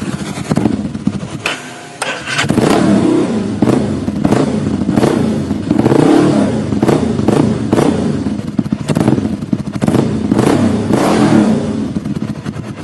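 Bajaj Avenger 220's single-cylinder engine running through an aftermarket nickel-bodied custom silencer, revved up and down several times with blips of the throttle, the revs dipping briefly about two seconds in.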